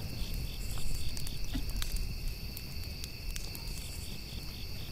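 Insects chirping: steady high trills with a faster pulsing chirp about five times a second, over a low rumble.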